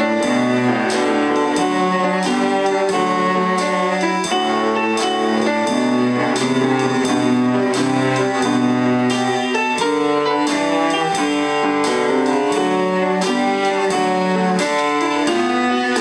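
A child playing a blues tune on the cello with the bow, over a chordal accompaniment with a steady beat.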